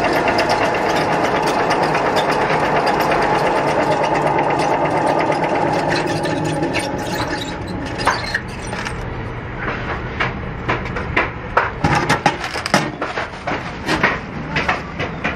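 Small centrifugal spin drum whirring steadily with a perforated basket of steel chain spinning inside; the noise dies away after about six seconds. Then a run of sharp metal clanks and chain rattles as the basket is handled.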